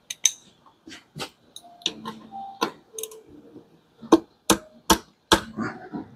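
Sharp metallic clicks and clinks of a socket and ratchet being handled against bolts under a car, irregular at first, then four loud clicks in quick succession about four seconds in.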